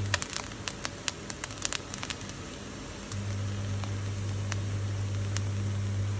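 A steady low hum that drops out near the start and returns about three seconds in, with scattered sharp crackles and clicks over the first two seconds or so.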